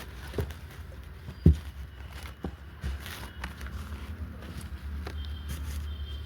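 Perfume packaging and bottle being handled: scattered light taps and clicks, with one sharp knock about a second and a half in, over a steady low hum.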